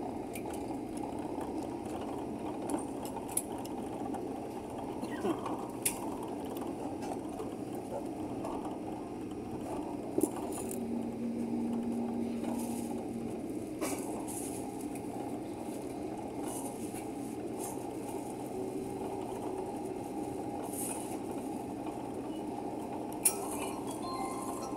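Steady cabin noise inside an Airbus A380 taxiing on the ground: an even hum of the engines and air system heard from inside the cabin, with a few brief clicks.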